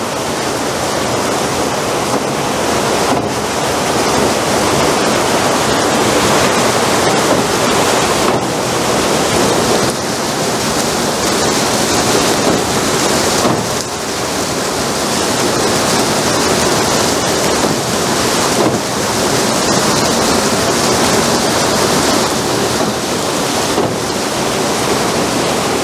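Water pouring onto a turning overshot water wheel makes a steady loud rush, with a dull knock about every five seconds, once per revolution of the wheel. This knock is the rumbling fault being hunted down, which the owner says definitely does not come from the bearings.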